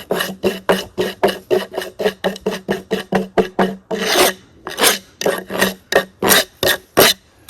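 Rapid back-and-forth rasping strokes on wood, about five a second at first, then slower and more spaced out after about four seconds.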